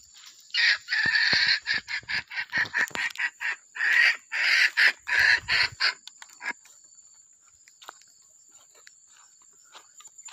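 Junglefowl crowing and clucking played as a lure call through a loudspeaker, a dense run of loud calls starting just after half a second in and stopping about six seconds in.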